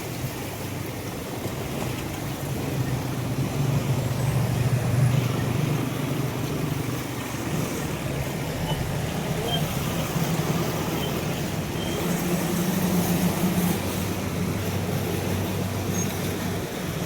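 Road traffic: motor vehicle engines running with a steady wash of noise, swelling louder a few seconds in and again near the end as vehicles pass.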